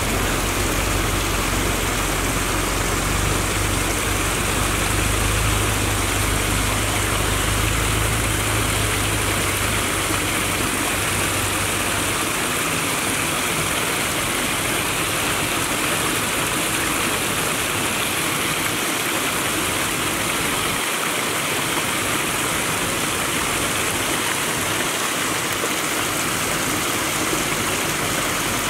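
Shallow stream rushing over a small rocky cascade: a steady hiss of flowing water. A low rumble underneath stops about twelve seconds in.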